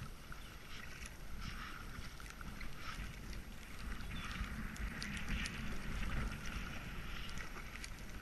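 Kayak paddling: paddle blades dipping and splashing, with water dripping and trickling in many small ticks. A low wind rumble sits on the microphone underneath.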